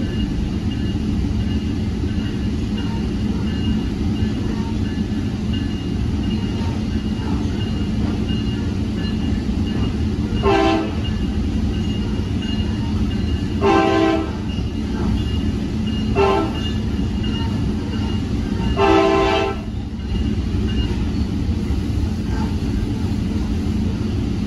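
Steady rumble of a moving Tri-Rail commuter train, heard from inside a coach. About halfway through, the train's horn sounds four blasts: long, long, short, long, the grade-crossing signal.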